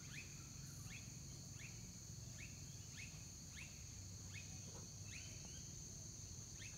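Outdoor insect chorus: a steady high-pitched trill, typical of crickets, with a short rising chirp repeated about every 0.7 seconds over it and a faint low hum beneath.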